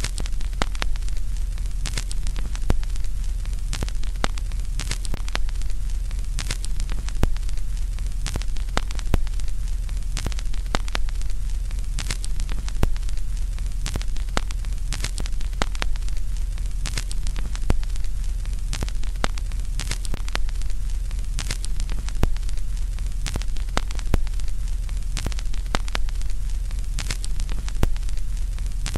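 Static-like crackling: an even hiss over a steady low hum, broken by irregular sharp crackles and clicks several times a second.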